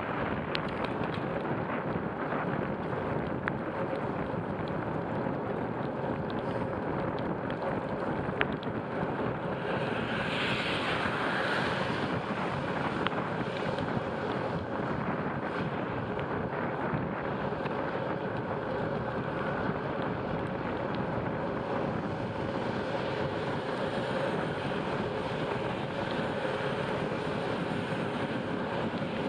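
Steady rush of wind on the microphone with tyre hiss from a bicycle riding on a wet road in the rain, and a few faint clicks.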